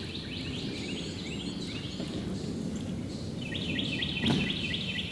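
Songbirds singing over a low, steady background rush; about three and a half seconds in, a run of quick down-slurred notes starts, about five a second. A single sharp click about four seconds in.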